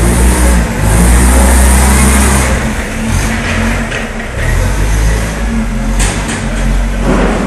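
Tractor-trailer's diesel engine running with a heavy low rumble, loudest for a second or two near the start.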